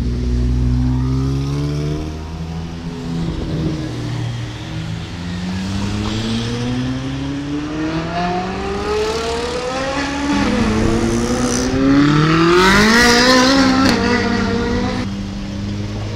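Ferrari 458's V8 engine accelerating hard, its note climbing twice in a row, the second climb the loudest, then settling to a steady drone near the end.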